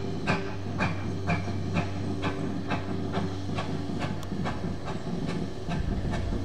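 GWR 6800 'Grange' class two-cylinder 4-6-0 steam locomotive No. 6880 Betton Grange working slowly, chuffing with an even beat of about two a second. Steam hisses from the open cylinder drain cocks.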